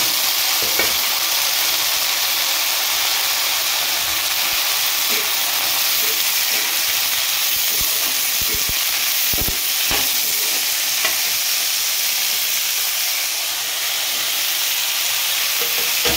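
Diced potatoes and green beans sizzling in hot oil in an aluminium kadhai, stirred with a flat metal spatula that scrapes and knocks against the pan, with a cluster of knocks about nine to ten seconds in. This is the open stir-frying stage, just after the vegetables go into the oil.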